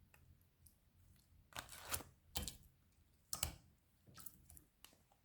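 Slime being worked by hand, making about five short, sharp sticky clicks and crackles.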